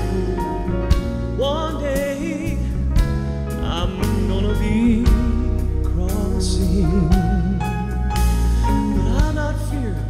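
Southern gospel quartet performing live with a band: a male lead voice sings held notes with vibrato over sustained accompaniment and a steady drum beat.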